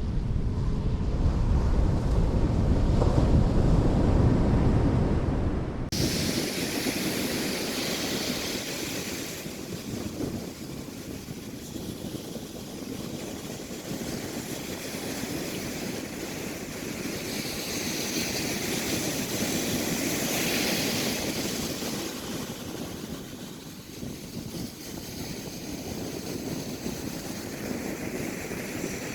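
Wind buffeting the microphone for the first several seconds. After an abrupt cut, ocean surf washes on the beach with wind hiss, swelling and easing.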